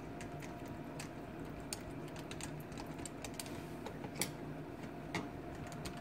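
Screwdriver backing the long mounting screws out of the inside of a deadbolt: faint, irregular light metallic clicks and ticks, with two sharper clicks in the second half.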